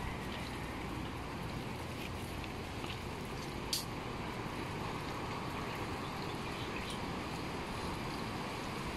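Steady rush of strong typhoon wind, with a short sharp click about four seconds in.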